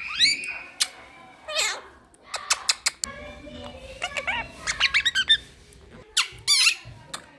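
Quaker parrot (monk parakeet) chirping and squawking in a run of short calls, some gliding up in pitch, with a quick cluster of chattering notes in the middle.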